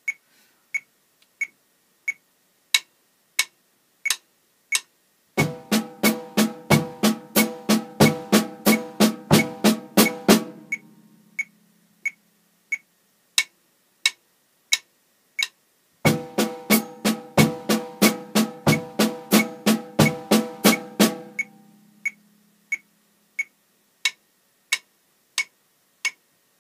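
Snare drum rudiments at 90 bpm over an even metronome click: quick stick strokes on a ringing snare, with bass drum and hi-hat pedal keeping the beat underneath ('walking feet'). The playing comes in about five seconds in and stops near ten seconds, leaving the click alone, then starts again around sixteen seconds and stops around twenty-one.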